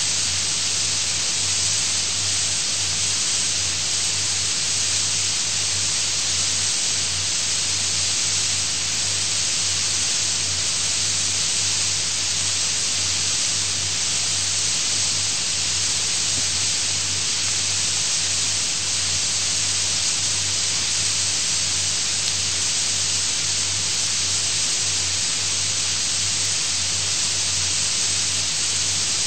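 Steady, unbroken hiss of recording noise, strongest in the upper range, with a low hum underneath.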